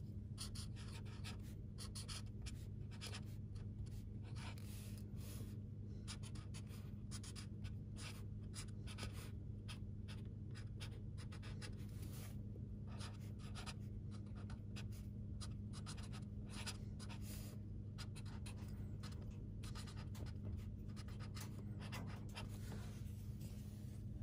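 A felt-tip highlighter stroked back and forth across paper, many short strokes in quick succession, over a steady low hum.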